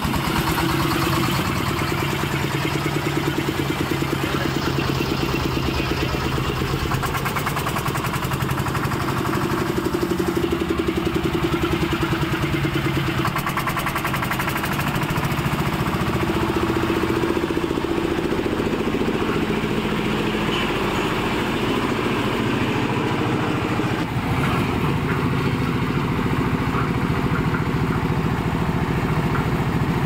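A concrete mixer's 10 HP diesel engine running steadily with a fast, even beat of firing strokes, belt-driving the mixer.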